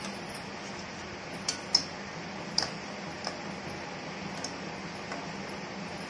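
A metal spoon clinking against a stainless steel pot while stirring a boiling liquid: about five sharp clinks, the loudest a little under two seconds in, over a steady background hiss.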